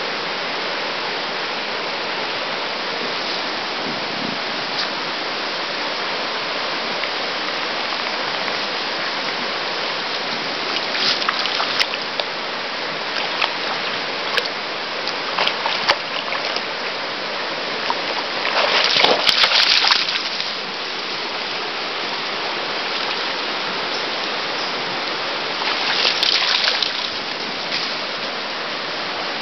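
Shallow river flowing steadily, with several bursts of splashing as a Patterdale x Lakeland terrier wades and moves through the water; the loudest splashing comes about two-thirds of the way through, and another burst near the end.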